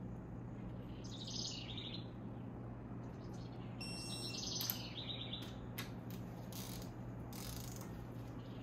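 Ratchet of a digital torque wrench clicking as it runs down the head-stud nuts on a BMW S54 cylinder head, toward the first torque step of 30 ft-lb. About four seconds in, a short electronic beep from the wrench signals that the set torque is reached. A few sharper single clicks follow, over a steady low hum.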